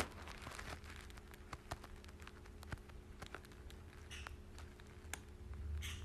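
Meyer's parrot nibbling at a plastic highlighter pen with its beak: irregular small clicks and taps, with two brief rustles in the second half.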